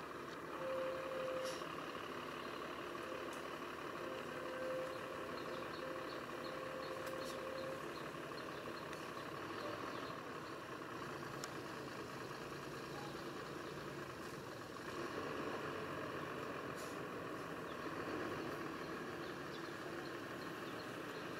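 Steady outdoor background hum, with a thin held tone through the first several seconds and a few faint clicks.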